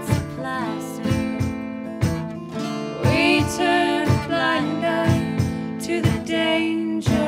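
Two steel-string acoustic guitars strummed in a steady rhythm, with a woman singing a folk melody over them.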